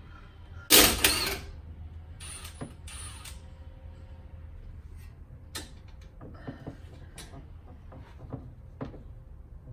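Hand tools on a brake caliper bolt: a 13 mm socket wrench and other metal tools clicking and clanking. A loud burst of noise about a second in is the loudest sound, followed by scattered sharp clicks.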